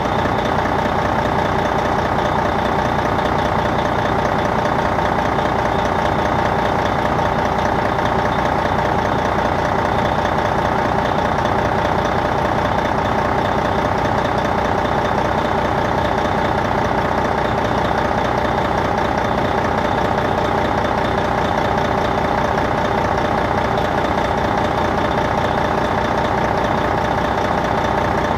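Detroit Diesel Series 60 diesel engine of a 2002 MCI D4000 coach running steadily, heard from the rear of the bus, where the engine is. It holds one even pitch throughout, with no shifts or surges.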